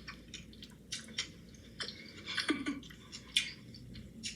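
A person chewing food close to the microphone: a run of irregular, quick wet clicks and crunches.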